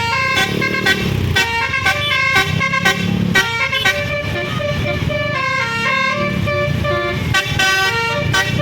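Tour bus's multi-tone basuri telolet horn playing a fast melody of stepped horn notes, with vehicle engine rumble underneath.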